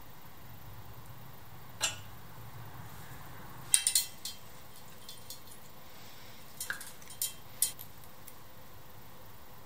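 Sharp metallic clinks and clicks of a spanner and small wire connectors being handled: one clink about two seconds in, a quick run of clicks near four seconds, and a few more around seven seconds.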